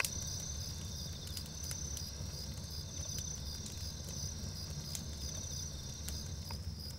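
Crickets chirping steadily in a night field, over a low steady rumble.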